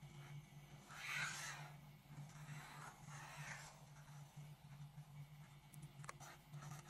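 Felt-tip marker scratching faintly across paper as lines are drawn, with the strongest stroke about a second in and another around three seconds, over a low steady hum. A small sharp click near the end.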